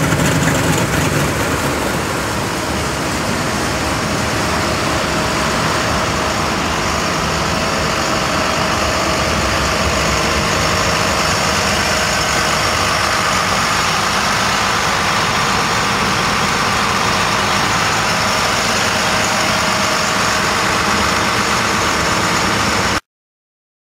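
A motor vehicle engine idling steadily; its deep low rumble eases in the first couple of seconds. The sound cuts off suddenly near the end.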